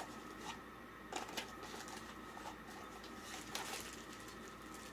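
Faint handling sounds: a few light clicks and rustles as small accessories and their packaging are handled and unpacked.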